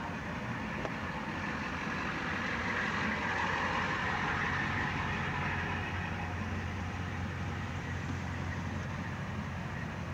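Car engine idling and creeping forward in slow traffic, heard from inside the cabin: a steady low hum under road and engine hiss that swells for a few seconds in the middle, then settles.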